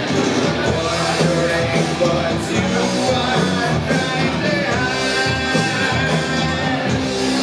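Live rock band playing: distorted electric guitar, bass guitar and drum kit, with a male lead singer singing over them.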